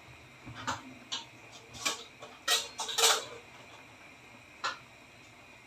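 About six short, crisp clicks and crackles of kitchen handling, the loudest cluster about three seconds in.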